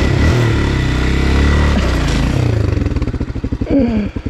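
Motocross bike engine revving up, then dropping back to idle with its separate firing pulses plainly heard.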